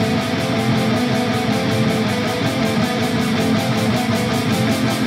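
Power metal band recording: distorted electric guitars, bass and drums playing at a steady loudness, with a fast, even drum pulse.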